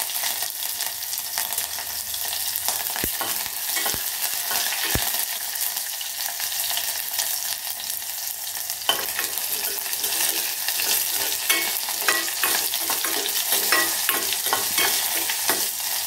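Mustard seeds, dried red chillies, curry leaves and whole small onions sizzling in hot oil in a stainless steel pan: the tempering stage of the dish. From about nine seconds in, a spatula stirs them, with quick scraping taps against the pan.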